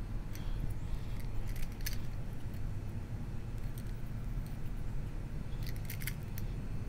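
Spline roller pressing rubber spline and screen mesh into a screen track: scattered sharp clicks and crackles, bunched about two seconds in and again near six seconds, over a steady low rumble.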